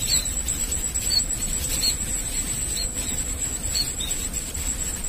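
An insect keeps up a steady, high-pitched trill, with short high chirps about once a second, over a low rumble.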